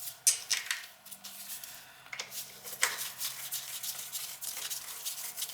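Sharp clicks, taps and short scrapes of metal parts being handled and fitted into an oil burner, with the loudest clicks near the start and about three seconds in.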